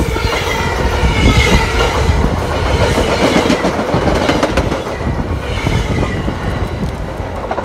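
Commuter train passing close by, its wheels clacking over the rail joints over a steady rumble.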